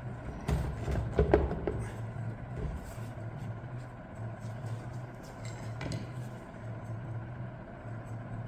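Metal transmission parts being handled during a teardown: a cluster of knocks and clanks between about half a second and two seconds in, and a single click near six seconds, over a steady low hum.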